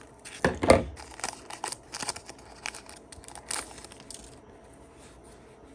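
Foil wrapper of a trading card pack being torn open and crinkled, a quick run of crackling rustles, with a thump under a second in as the pack is handled. The crinkling stops after about four seconds.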